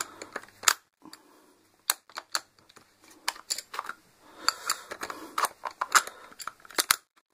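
Drill bit pushed into and pulled out of a rotary hammer's SDS chuck: a string of sharp metallic clicks and rattles as the bit's shank and the chuck's locking ball seat and release. The repaired chuck is now holding the bit.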